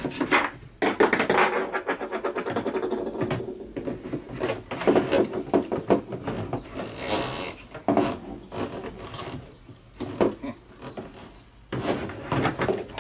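Irregular knocks, scrapes and plastic clatter as the kerosene filling gear is handled: the pump and fuel containers being moved and set in place.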